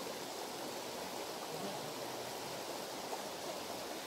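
Shallow river running steadily, a continuous rush of flowing water.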